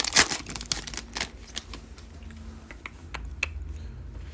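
Select NBA trading cards being handled and flipped through by hand: a run of light card clicks and snaps, busy at first and sparser toward the end.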